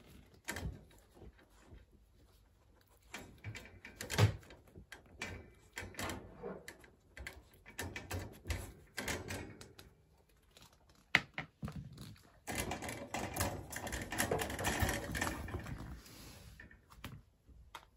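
A puppy in a wire crate goes at a chew bone held against the bars: irregular clicks, taps and knocks, with two sharp clicks, one about four seconds in and one about eleven seconds in. A denser stretch of clattering and rustling comes later.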